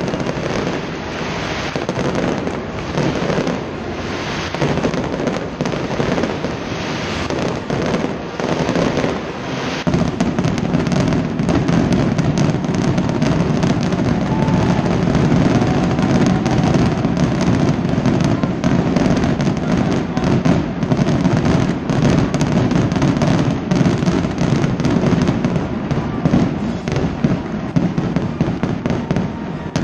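Stadium fireworks display: shells bursting and crackling in a dense, continuous barrage, fuller and louder from about ten seconds in.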